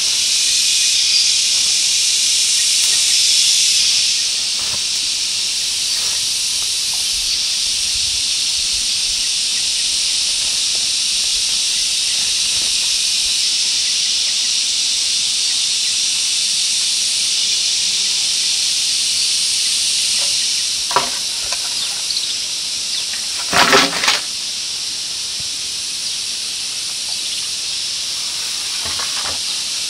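Dense, steady, high-pitched chorus of forest insects, a little louder for the first few seconds. A single light knock comes about two thirds of the way in, and a quick cluster of knocks follows about three quarters of the way through.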